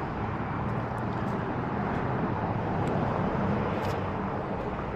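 Road traffic noise from a passing vehicle, a steady rush that swells a little and eases off near the end.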